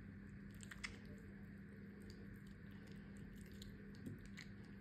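Metal spoon scooping cubed ripe mango flesh off the skin into a glass bowl: faint soft squishing with a few small clicks, the clearest about a second in, over a low steady hum.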